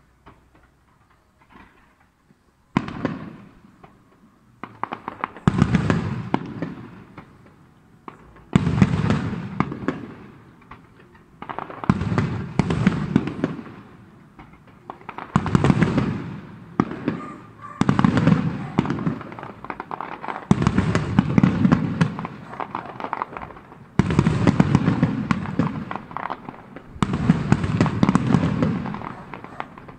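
Fireworks display, aerial shells bursting. After a quiet first few seconds, about nine loud bangs come roughly every three seconds, each fading away in a crackle over a second or two.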